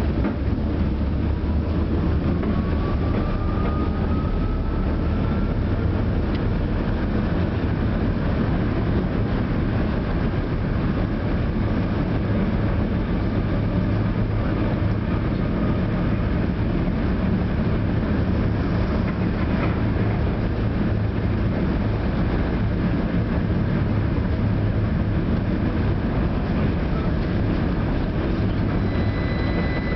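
A St Petersburg tram running between stops, heard from inside the passenger car: a steady rumble of wheels on rails and running gear. A faint rising whine comes in over the first few seconds.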